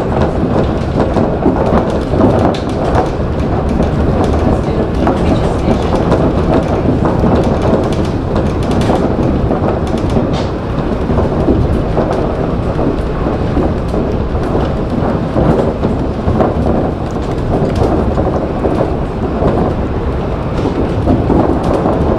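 A Shonan Monorail 5000-series suspended monorail running at speed, heard from inside the cab. A loud, steady running rumble from its rubber tyres in the box-girder track, with scattered small rattles and clicks.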